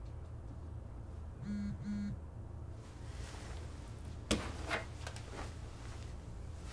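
Phone notification: two short buzzes in quick succession about a second and a half in. Then bedding rustles, with a sharp knock and a few smaller clicks, as someone turns over on a bed and reaches for the phone, over a low steady room hum.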